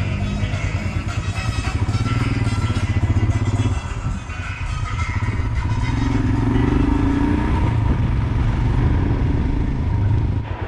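Motorcycle engine running while riding along a road. The engine note drops briefly about four seconds in, then picks up again and holds steady.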